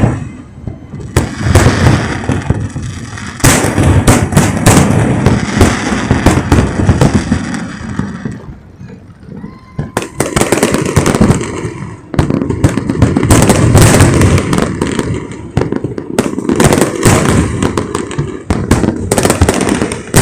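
Aerial fireworks display heard up close: a dense run of loud bangs and crackling from bursting shells, easing into a brief lull about halfway through before the bursts pick up again.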